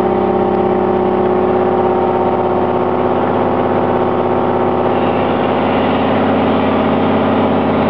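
Diesel engine of a 1995 Seagrave ladder truck running steadily, powering its 100 ft aerial ladder, with a slight change in pitch about five seconds in.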